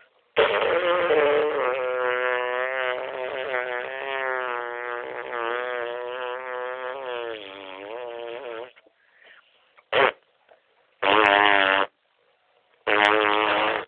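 A dog vocalising on a "talk" command: one long, wavering, whining howl of about eight seconds, then a brief sound and two shorter howls of about a second each near the end.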